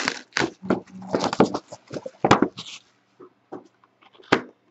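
Cardboard trading-card box being opened by hand: plastic wrap and cardboard rustling and scraping in quick bursts, thinning out to a few faint clicks and one sharper tap near the end.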